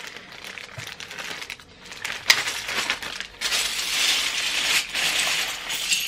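Plastic polybag of LEGO bricks crinkling as it is opened, a sharp click, then the loose plastic bricks poured out in a dense rattling clatter through most of the second half.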